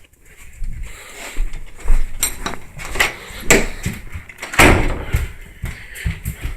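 Close handling noises: an irregular run of sharp clicks, knocks and low thumps, the loudest about halfway through and again near the five-second mark.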